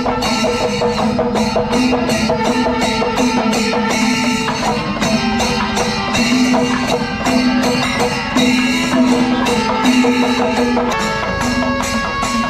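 Kerala temple festival percussion music: rapid, dense drum and cymbal strokes under a steady, held pitched tone.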